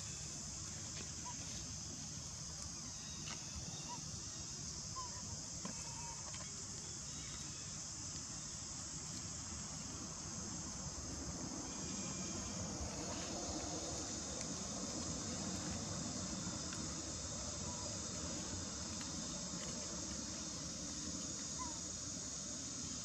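Steady high-pitched drone of insects, over a low background rumble that grows slightly louder about halfway through.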